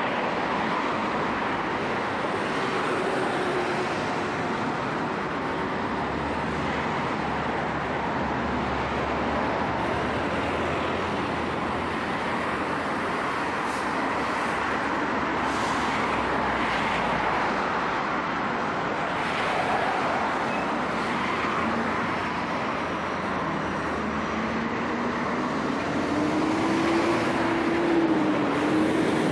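Steady city street traffic, with a Hyundai city bus idling close by. Near the end the bus's engine note rises as it pulls away.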